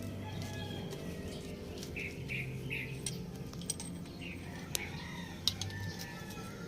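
Birds chirping and chickens clucking over a steady low hum, with a few sharp clicks in the second half.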